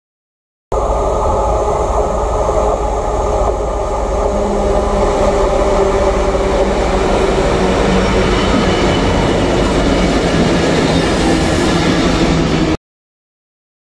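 A coupled pair of Freightliner Class 66 diesel locomotives running light, their EMD two-stroke V12 engines throbbing steadily with rail noise as they approach and pass. The sound cuts in abruptly just under a second in and cuts off abruptly about a second before the end.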